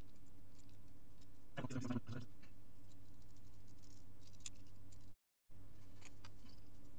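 Faint clicks and rattles of plastic speed-cube pieces being handled during assembly, over a steady electrical hum, with a brief burst of louder clicking about two seconds in. The sound cuts out for a moment a little past five seconds.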